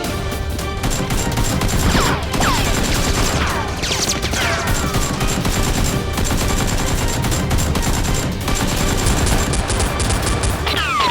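Rapid bursts of gunfire sound effects, like machine-gun fire, over background music, with falling whistling sweeps about two and four seconds in.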